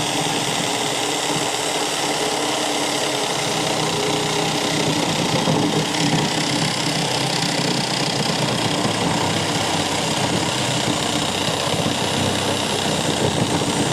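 Power saw running steadily as it cuts through a drain pipe.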